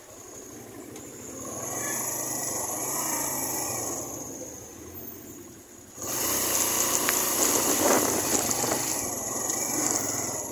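A Suzuki GN125's single-cylinder four-stroke engine runs as the motorcycle rides along, under a rushing noise of wind on the microphone. The noise swells about two seconds in, eases off, then jumps suddenly louder about six seconds in.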